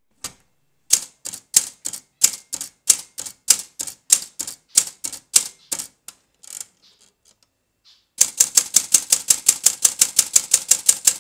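Manual typewriter keys striking the paper one at a time, about three strokes a second. After a short pause, a fast, even run of strokes types an underline beneath the word and cuts off suddenly.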